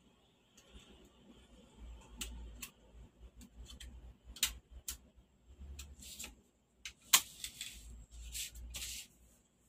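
Irregular small plastic clicks and taps, with brief rustles, as hands seat flat ribbon cables into their connectors on the small board at the edge of an LED TV panel. The sharpest click comes about seven seconds in.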